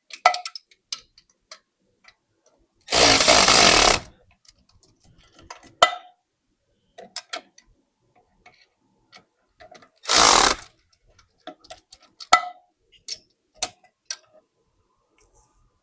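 Ratchet clicking as the LS intake manifold bolts are tightened down, with two short loud bursts of a power tool, one about three seconds in and a shorter one about ten seconds in.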